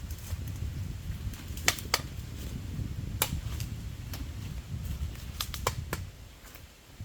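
Irregular sharp knocks and clicks, several close together, over a steady low rumble.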